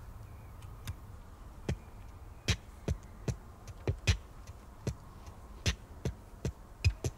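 Irregular sharp clicks from a small chrome object being worked in the hands, coming closer together toward the end, over a steady low hum.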